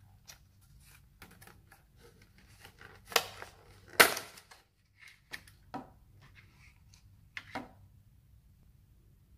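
Clear plastic sandwich wrapper crinkling and crackling as it is handled and torn open, with two loud crackles about three and four seconds in and smaller ones near the end as the sandwich is pulled free.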